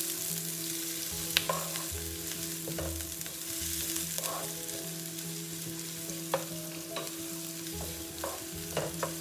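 Garlic, onion and red chili sizzling in hot oil in a wok as they are stir-fried, with a steady hiss and scattered sharp knocks and scrapes of the stirring utensil against the wok, about eight in all. A steady low hum runs underneath.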